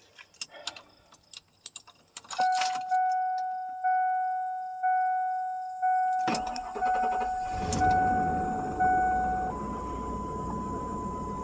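A warning chime dings about once a second, then about six seconds in the 1997 Ford Expedition's 5.4 Triton V8 cranks, catches and settles into a steady idle on its first start in about a week, while the chime keeps dinging a few more times. Near the end a steady, higher single tone sounds over the idle.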